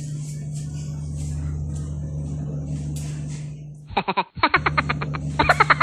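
A steady low hum, then about four seconds in two short bursts of quick pitched notes, like an edited-in music sting.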